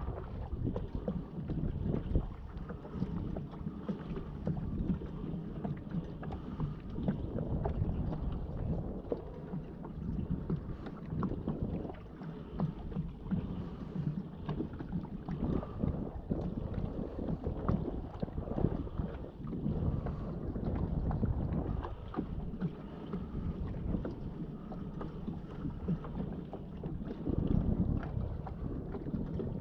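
Wind buffeting the microphone in uneven gusts, with water lapping against a kayak hull.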